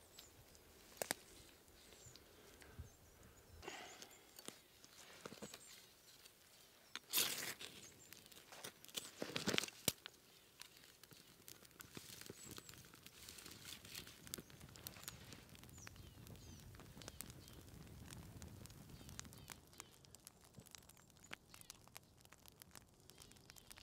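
Faint outdoor sounds, with a few louder rustles and snaps in the first half, then the light, sparse crackle of a small tinder fire of dry pine needles and twigs.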